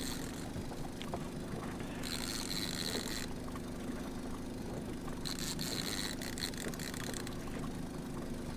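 Steady low hum of the boat's motor running at trolling speed. A fishing reel is cranked in two stretches of a second or so each, around two and five seconds in, as a hooked walleye is reeled up.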